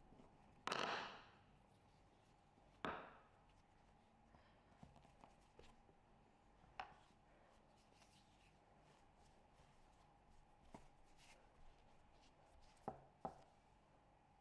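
A few soft knocks and pats on a marble worktop as hands fold and roll bread dough, the first about a second in the loudest, and two close together near the end, over a faint steady hum.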